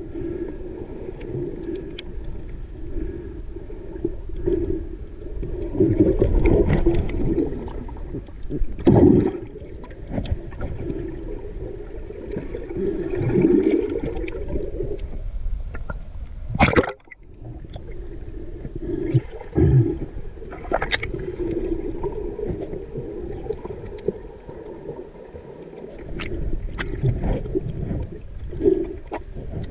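Muffled underwater noise picked up by an action camera in its waterproof housing as it moves through the water: gurgling, rushing water with a few sharp knocks.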